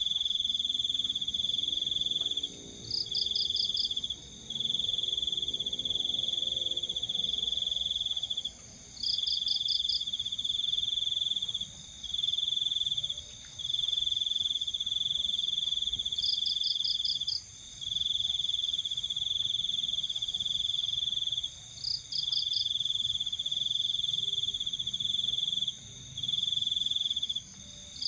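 Night insects, crickets or katydids, calling together. One trills loud and high in long phrases, breaking off briefly every few seconds. Another gives a quick burst of about five chirps every six or seven seconds over a steady higher buzz.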